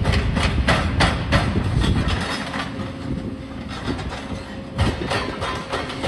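Demolition excavators working a pile of concrete rubble: engine rumble under rapid, irregular metallic clanks and clattering debris. The clanks thin out in the middle and pick up again near the end.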